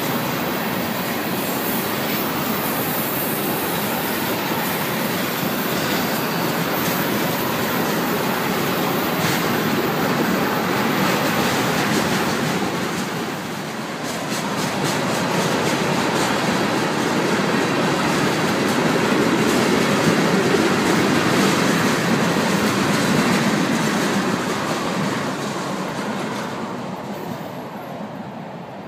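Freight train of tank cars rolling past: a steady rumble and rush of steel wheels on rail with some clicks. It fades away near the end as the last car goes by.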